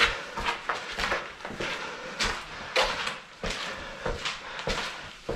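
Footsteps on a gritty concrete floor, irregular steps about one to two a second, echoing in a narrow concrete passage.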